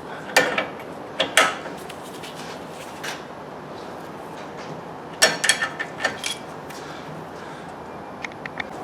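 Metal hand tools clinking and knocking against car suspension parts during work on the front lower arm: a single knock, then two close together, then a cluster of clanks. A few faint quick ticks come near the end.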